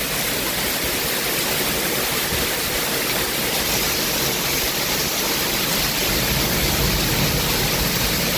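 Heavy storm rain pouring down in a steady, dense hiss.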